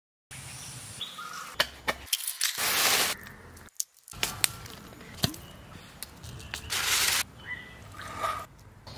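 Food-preparation sounds: sharp knocks and clicks of a cleaver cutting meat on a wooden board and of handling ingredients. Two loud rushing noise bursts, each about half a second long, come about three and seven seconds in.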